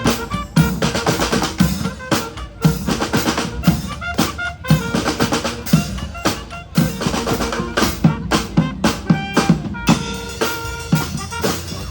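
Street band playing live: bass drum and snare beating out a busy, driving rhythm, with wind instruments sounding short held notes over the drums.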